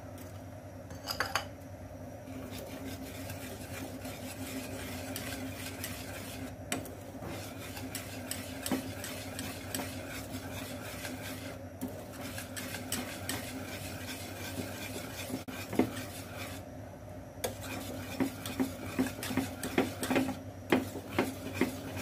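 A wire whisk stirs a thickening milk, flour and cheese sauce in a metal pan, scraping steadily. In the last few seconds it knocks quickly against the pan, several taps a second.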